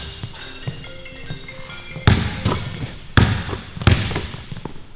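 A phone ringtone playing a short marimba-like melody, followed by a basketball bouncing on the court a few times, with high squeaks near the end.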